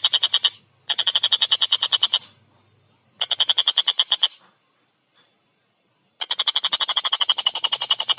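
A tengkek buto kingfisher calling in fast, loud runs of harsh, rapidly repeated 'kek' notes. There are four runs, with a longer pause of about two seconds before the last one.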